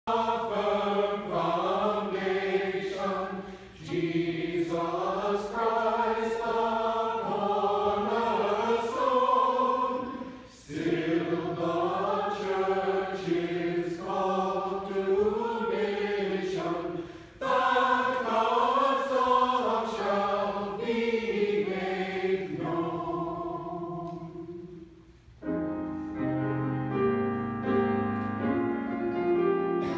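Mixed-voice church choir singing a hymn in phrases, with short breaks between phrases. Near the end the voices fade out and a piano plays on alone.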